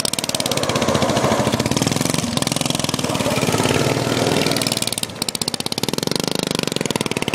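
Racing lawnmower's small engine running, a rapid, even train of firing pulses that eases off briefly about five seconds in and then picks back up.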